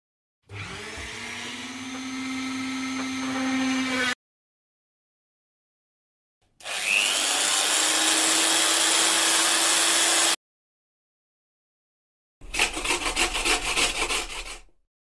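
Workshop power-tool sound effects cut one after another: a motor spinning up and running, then a second spinning up with a loud high grinding hiss, then a short burst of rapid rasping strokes, about five a second, each sound stopping abruptly.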